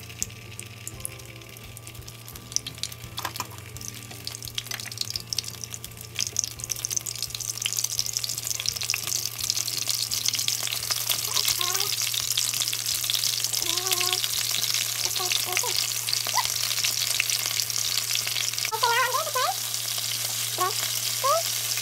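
Egg-and-cornstarch-coated shrimp frying in hot oil in a nonstick pan, with a dense crackling sizzle. The sizzle grows much louder about a third of the way in as more shrimp go into the oil.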